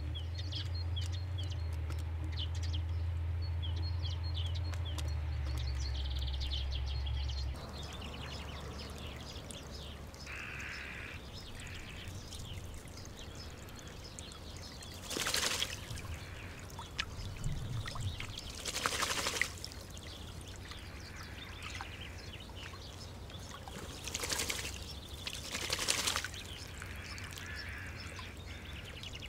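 Two wood pigeons bathing in a shallow stone bird bath, splashing water with their wings in four short bouts spread over the last twenty seconds, with small birds chirping in the background. Before that, a steady low hum runs under bird chirps for the first several seconds, then stops.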